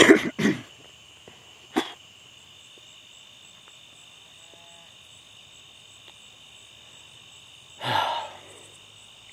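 Steady high chorus of crickets and other insects. Over it, a man coughs loudly twice into his fist at the start, gives a shorter cough just under two seconds in, and makes another brief throat sound near the end.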